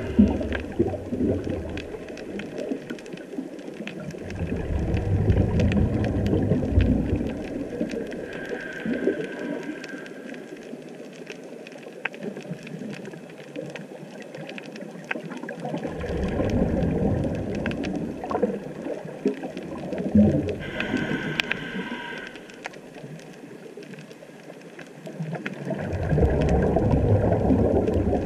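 Scuba diver's regulator breathing picked up underwater through the camera housing. A short hissing inhale comes about 9 seconds in and again about 21 seconds in, with long rumbling bubble exhales between them. Fine crackling clicks of the reef run underneath.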